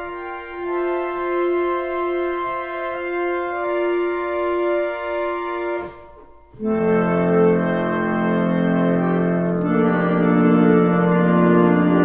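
A 1917 Estey Style O reed organ, restored to working condition, playing slow sustained chords. About six seconds in the playing breaks off briefly, then resumes louder and fuller with low bass notes added.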